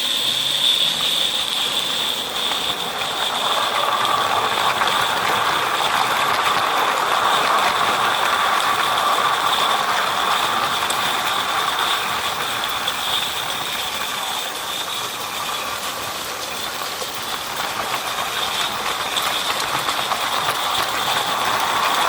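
A 16mm-scale gas-fired live steam locomotive running with a train of empty goods wagons on 32 mm gauge garden track: a steady hiss over a rapid, fine clatter of small wheels and wagons.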